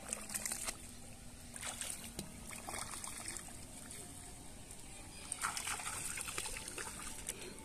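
Hands splashing and sloshing in shallow, muddy paddy water in several short bursts, the longest near the end.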